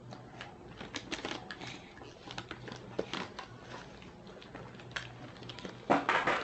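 Gift wrapping paper being crinkled and torn open by hand: irregular short rustles and snaps, with a louder burst of tearing noise near the end.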